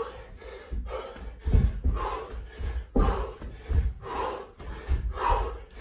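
Jump lunges on a carpeted floor: dull thuds of feet landing, one every second or less, each with a hard, heavy exhaled breath from the exerciser.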